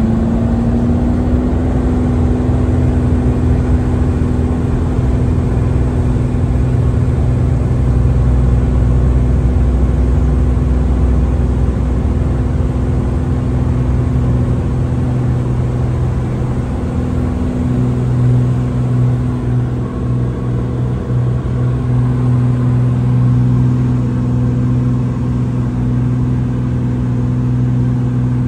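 Cirrus SR22T's turbocharged six-cylinder engine and propeller at full takeoff power, heard inside the cabin: a loud, steady drone whose pitch climbs in the first second or so as power comes up, then holds. The deeper tone grows stronger about two-thirds of the way through as the aircraft lifts off and climbs.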